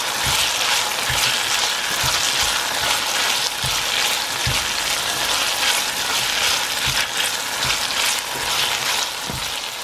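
Diced apple and raisins sizzling steadily in hot coconut oil in a stainless steel saucepan while being stirred with a spatula, with soft low knocks now and then as the spatula moves against the pan.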